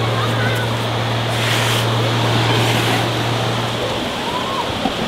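Beach ambience: a steady rush of surf and wind, with faint distant voices. A steady low hum runs underneath and drops out for about a second near the end.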